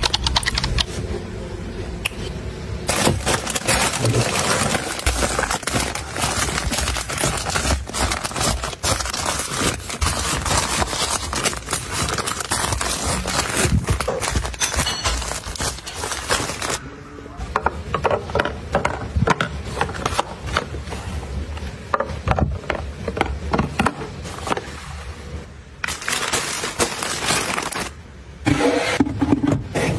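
Close-up handling sounds of restocking: plastic-wrapped tissue packs and bagged items rustling and crinkling as they are pushed and set into place, with scattered light knocks and scrapes.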